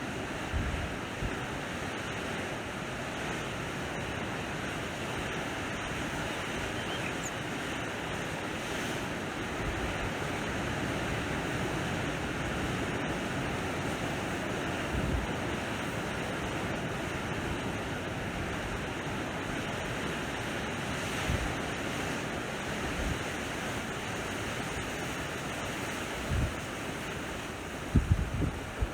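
Sea waves washing steadily on the shore, an even surf wash, with wind buffeting the microphone in a few low thumps near the end.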